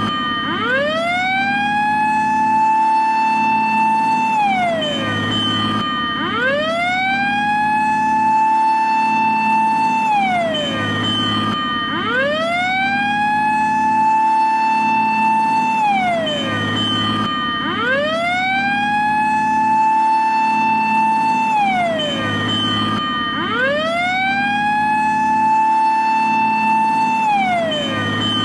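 Japanese fire engine siren wailing in long repeated cycles, about every six seconds. Each cycle glides up, holds a high tone for a couple of seconds, then slides back down, over a steady low hum.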